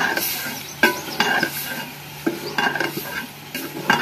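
Metal ladle stirring okra and chicken in a steel cooking pot over a wood fire. It knocks and scrapes against the pot's sides in a string of sharp clinks, with a light sizzle underneath.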